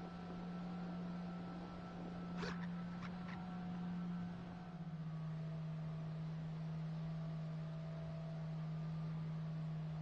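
Steady hum of a model airplane's electric motor and propeller in flight, dropping slightly in pitch about halfway through as the throttle eases, over a hiss of airflow.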